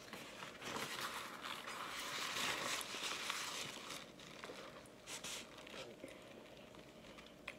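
Plastic forks scraping and tapping in paper food bowls, with a rustling scrape strongest in the first half and fainter ticks after.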